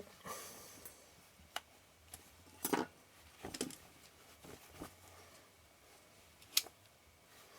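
Irregular small clicks and knocks of a camera lens and small tools being handled on a workbench, about six in all, the sharpest one shortly before the end.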